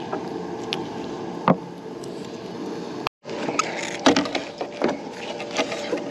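Metal finds clinking and clanking as they are handled on a magnet-fishing magnet: one sharp knock, then after a short break a run of irregular clicks and clanks. A steady low rumble runs underneath.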